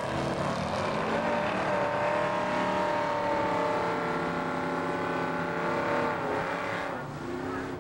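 Two drag-racing cars launch side by side and run down the strip at full throttle. Their engine note climbs steadily for several seconds, drops about six seconds in, then fades as they pull away.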